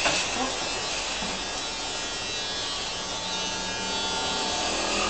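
Electric hair clippers running steadily as they are worked through a person's hair.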